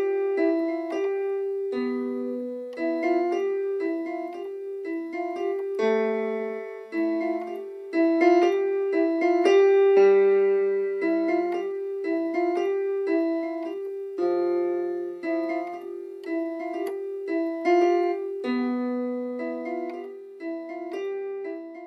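Solo piano music: a slow, gentle figure of single notes and simple chords in the middle register, each note struck and left to ring. It fades out near the end.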